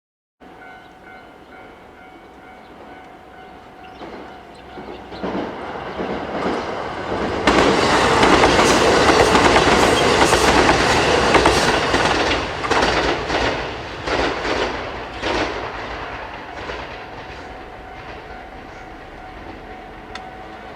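A KiHa 189 series diesel multiple unit approaches, passes close by with its engines and wheels loud, then fades away. As the cars go by there is a quick run of clacks from the wheels over the rail joints. A level crossing warning bell rings steadily before the train arrives and again as it recedes.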